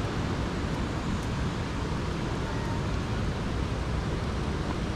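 A steady low rushing noise with no distinct events.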